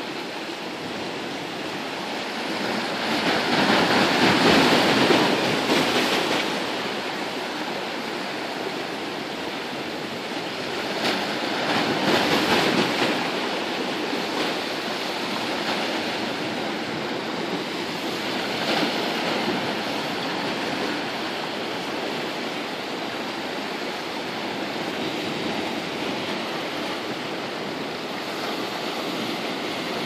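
Small sea waves washing in and breaking around shore rocks: a steady rush of surf that swells louder three times, a few seconds in, about twelve seconds in and again near nineteen seconds.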